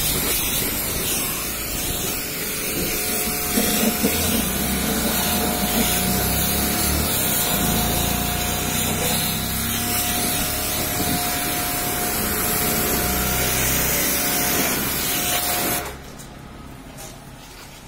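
Car-wash pressure washer spraying a jet of water against a car's wheel and body: a loud, steady hiss with a thin steady whine under it, cutting off suddenly near the end.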